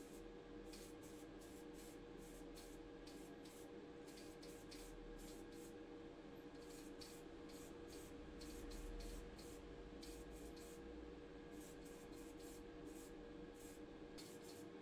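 Faint short hisses from an aerosol can of grey hobby spray paint, pressed in many quick bursts one after another, over a steady low hum.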